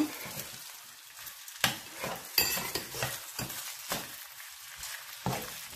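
Fried rice sizzling in a frying pan as a metal spoon stirs it, knocking and scraping against the pan several times.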